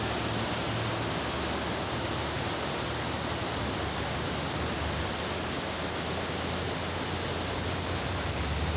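Floodwater rushing in a swollen river, a steady, even rushing noise with a low hum underneath.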